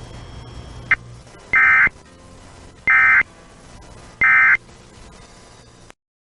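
Emergency Alert System end-of-message data: three short, identical bursts of rasping digital tone about a second and a half apart, the SAME EOM code that closes an EAS alert, after which the audio cuts off abruptly. A brief click comes about a second in.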